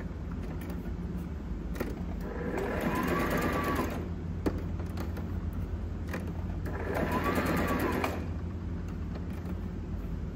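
Brother mechanical sewing machine stitching in two runs of about a second and a half each as the foot pedal is pressed, the motor's pitch rising and falling with each run. A low steady hum and a couple of sharp clicks lie between the runs.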